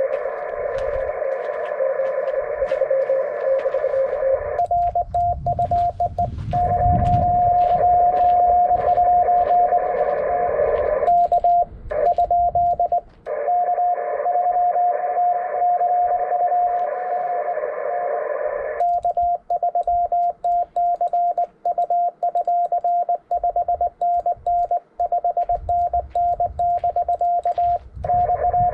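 Morse code (CW) from a ham radio transceiver's speaker: tones keyed on and off over a hiss of band noise, with more than one station's signal at different pitches, as in a CW pileup. About two-thirds of the way through, the hiss drops away and a single keyed tone carries on alone.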